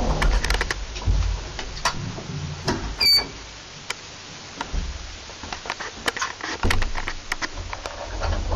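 Inside an elevator car: a short electronic beep about three seconds in as a floor button is registered, amid scattered clicks and rattles from the car and its doors, over a low rumble.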